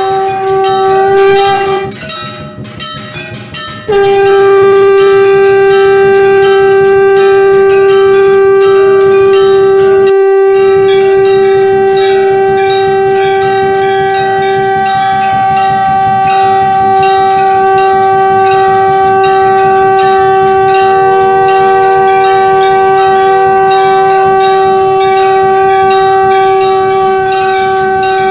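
Conch shell (shankh) blown in long, steady, loud notes: one note ends about two seconds in, and after a brief pause a single long note starts about four seconds in and is held to the end.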